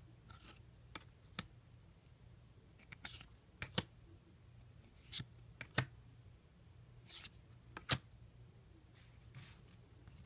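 Trading cards and a booster pack being handled: scattered light clicks and a few short swishes of card sliding against card.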